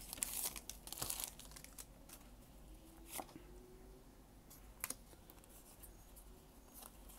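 Foil wrapper of a Pokémon card booster pack crinkling and tearing open, loudest in the first second or so. After that it is faint, with a couple of soft clicks as the cards are handled.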